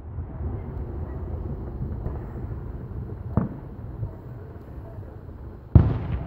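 Distant aerial fireworks shells going off: a lighter bang about three and a half seconds in and a heavy, echoing boom near the end, over a low steady rumble.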